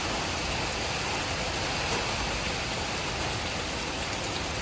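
Heavy hurricane rain falling steadily, an even rushing hiss with no let-up.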